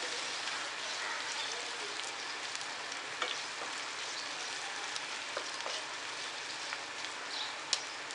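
Onion-tomato masala paste sizzling steadily as it fries in oil in a pan, with a few scattered small pops.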